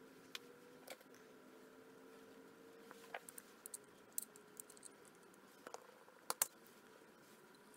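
Faint, scattered light clicks and taps of small hardened steel wrench parts being handled and worked with retaining-ring pliers: about a dozen sharp ticks at irregular intervals, the loudest pair near the end, over a low steady hum.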